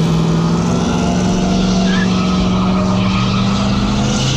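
A car doing a burnout, its engine held at high, steady revs while the rear tyres spin and squeal on the pavement.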